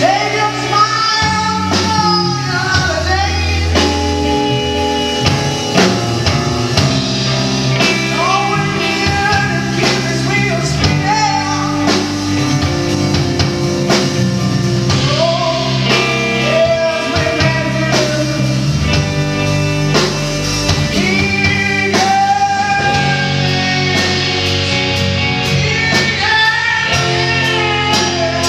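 Rock band playing live: a male voice singing over electric guitar, electric bass and a drum kit.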